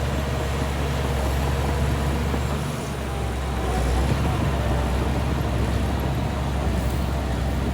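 Heavy diesel engine of earthmoving equipment running steadily, a low continuous hum under a wash of mechanical noise.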